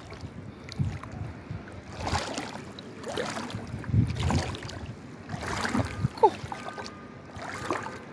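Floodwater sloshing and swishing as a person wades through waist-deep water, swelling in surges about once a second with each stride.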